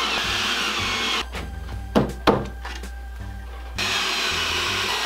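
Cordless drill driving screws into wood: the motor runs under load for about a second, stops, then starts again near four seconds in. Two sharp knocks come in the gap between the runs. Background music plays underneath.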